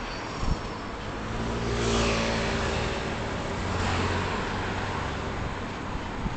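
A motor scooter overtakes close alongside, its engine swelling loudest about two seconds in and fading as it pulls ahead, with a second vehicle passing near four seconds in, over steady road and wind noise from the moving vehicle.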